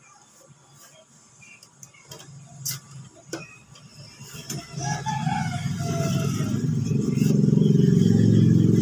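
Scattered light clicks and knocks of cables and connectors being handled on a CRT TV's chassis board. From about halfway, a low drone builds steadily and is loudest near the end.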